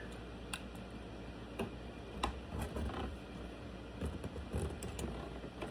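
Irregular small clicks and snaps of 3D-printed plastic support material being broken and peeled off a printed part by hand.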